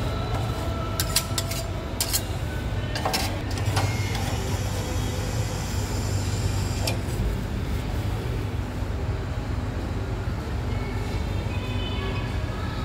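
Metal spatulas scraping and tapping on the metal cold plate of a rolled ice cream counter as the ice cream is spread thin, with several sharp clicks in the first few seconds and one more midway. A steady low rumble runs underneath.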